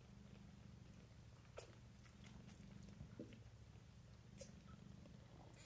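Faint, steady low purring from a nursing cat and kittens, with a few soft clicks and smacks of kittens suckling.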